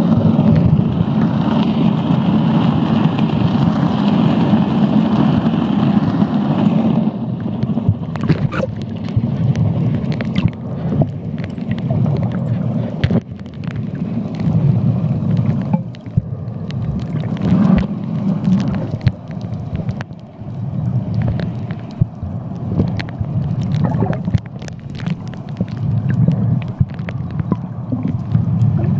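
Underwater scuba sound: a low rumbling gurgle of regulator breathing and exhaled bubbles that swells and fades every few seconds, with a brighter rush in the first several seconds and many sharp clicks after.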